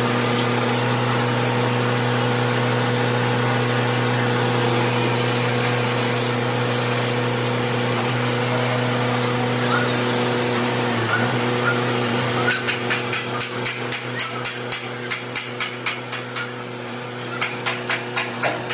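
A manual chain hoist clicking in a quick regular run, about three clicks a second, as its hand chain is pulled to lower a large steel gear, with a shorter, faster run of clicks near the end. A steady electric machine hum runs underneath throughout.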